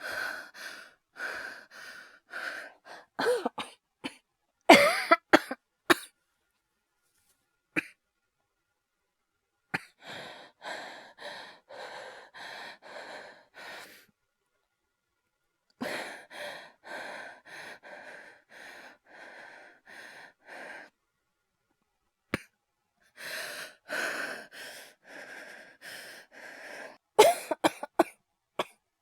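A person's acted coughing fits: runs of short, rapid coughs broken by brief pauses, with a few harder, louder coughs about five seconds in and again near the end.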